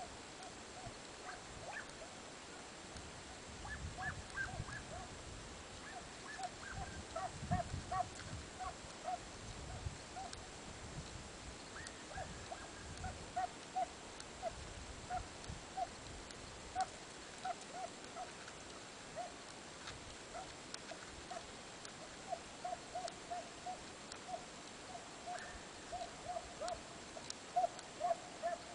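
Hunting hounds giving tongue in runs of short, high yelps, several in quick succession at times, the cry of the pack on a hare's trail.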